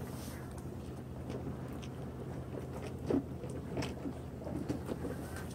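Someone chewing food at close range, with a few soft clicks and taps, over a steady low hum.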